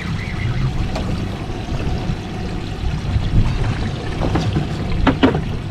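Water sloshing and trickling around a fishing boat over a steady low rumble, with a few short knocks near the end.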